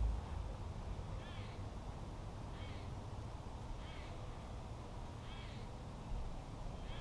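A bird calling repeatedly, a short arched call about every second and a half, five times.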